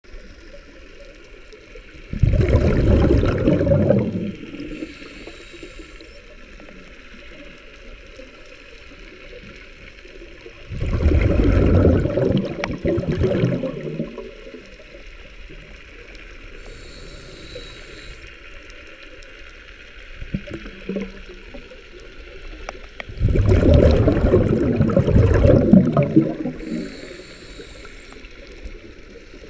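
Underwater sound of a scuba diver's breathing: three loud bursts of exhaled bubbles rumbling out of the regulator about ten seconds apart, each followed by a short, faint hiss. A low watery background runs between them.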